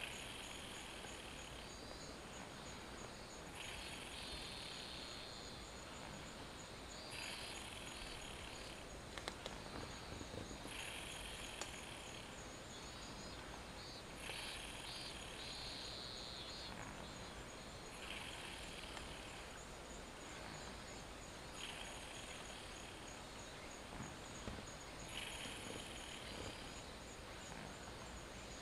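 A sleeping domestic cat snoring softly: a breathy snore about every three and a half seconds, each lasting about a second and a half. A steady, faint high-pitched whine runs underneath.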